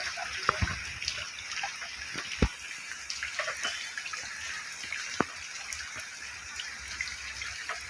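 Rainwater leaking into a building: a steady rush of running water with scattered drips and taps.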